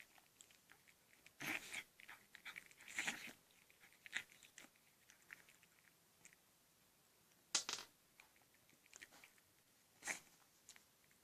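A cat crunching and chewing dry treats in irregular bites, with a few louder crunches spread through.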